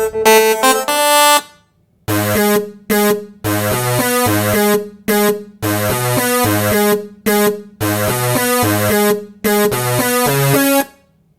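Modern R&B-style synthesizer music: a short keyboard phrase that ends about a second and a half in, then after a brief gap a choppy synth riff of short chords over bass notes that stops just before the end.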